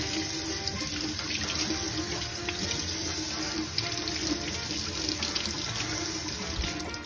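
Kitchen faucet running into a stainless steel sink as green onions and tomatoes are rinsed by hand under the stream, a steady rush of water. The water shuts off near the end.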